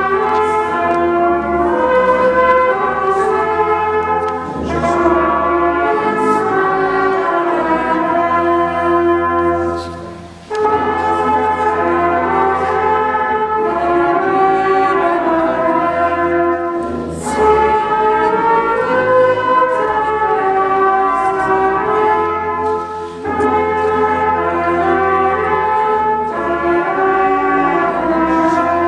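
Brass ensemble playing a slow, chorale-like piece in sustained chords. The phrases are separated by short breaks, the clearest about ten seconds in.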